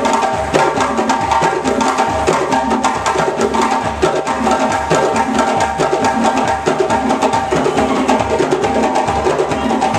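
West African drum ensemble of djembe hand drums and dunun barrel drums playing together in a dense, steady rhythm without pause.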